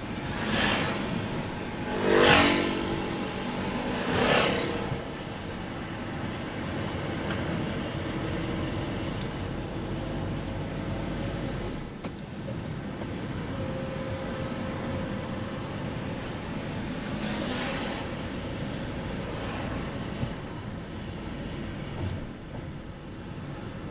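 Street traffic: a steady rumble of road noise with cars passing by, three in quick succession in the first five seconds and another about eighteen seconds in. The loudest pass, about two seconds in, carries a clear engine note.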